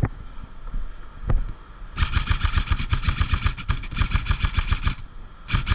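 Airsoft electric gun firing on full auto: a long burst of rapid, evenly spaced shots lasting about three seconds, then a second short burst near the end.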